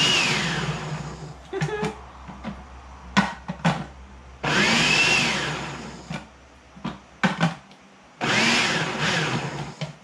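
Electric food processor pulsed in three short bursts. Each time the motor whine rises as it spins up and falls as it winds down, with clicks and knocks from the machine between pulses.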